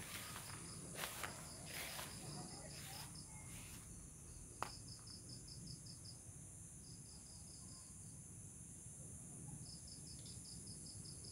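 Faint insect chirping: a rapid pulsed trill of about ten pulses a second, coming in runs of a second or so with short gaps. A few soft knocks or rustling steps sound in the first four seconds, and there is a single sharp click about four and a half seconds in.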